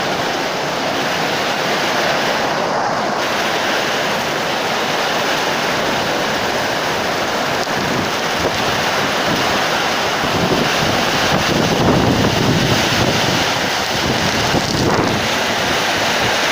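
Summer rainstorm: heavy rain and strong wind making a steady, dense rushing, with wind buffeting the microphone. It swells a little louder about ten seconds in.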